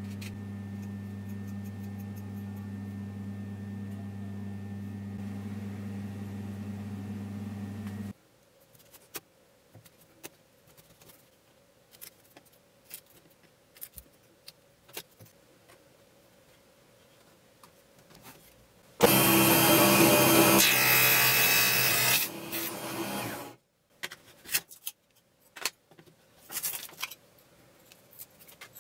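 Workshop sounds: a steady motor hum for the first eight seconds, then scattered small clicks and taps of metal parts handled on a wooden board. About nineteen seconds in, a loud burst of machine noise lasts about four seconds and stops suddenly.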